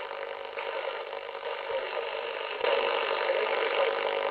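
Icom IC-718 shortwave receiver's AM audio as its dial is turned across the 22-metre broadcast band: hiss and static with steady whistling tones through it, jumping louder about two and a half seconds in as a stronger signal comes in. The reception is noisy, which the owner puts down to the Wellbrook loop antenna.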